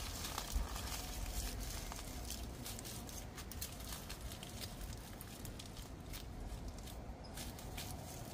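Aluminium foil crinkling in irregular small crackles as it is wrapped and pressed around a peat-moss air-layer on a tree branch, over a low steady rumble.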